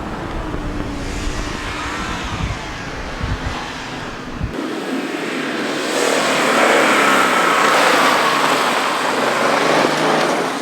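Toyota 86 rally car engine running on a snow stage, heard with wind on the microphone at first. About four and a half seconds in it grows louder as the car comes close, engine revving under load.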